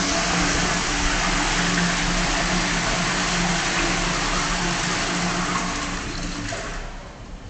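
Public toilet flushing: a loud rush of water with a steady low hum underneath, dying away about seven seconds in.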